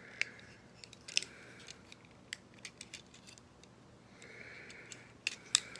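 Plastic parts of a Transformers Barricade action figure clicking and scraping as it is handled and transformed: scattered sharp clicks, the loudest about a second in and two near the end, with soft rubbing between them.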